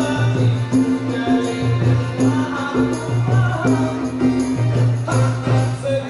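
Live Malay ghazal ensemble playing: accordion, acoustic guitar and double bass over a steady beat from hand drums with jingles, struck about every three-quarters of a second.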